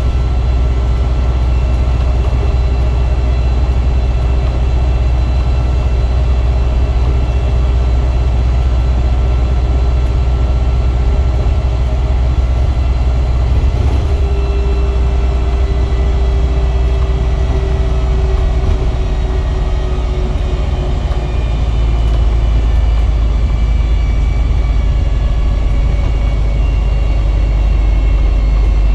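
Wright StreetDeck double-decker bus running: a deep, steady engine rumble with weird whirly whines on top, which glide down in pitch through the second half.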